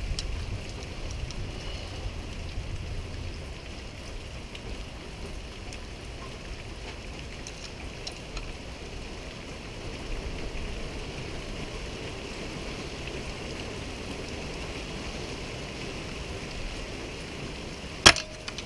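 Steady patter of rain. Near the end comes a single sharp metallic ping with a brief ring, as the small mystery filter is pulled free of an HPDI fuel injector.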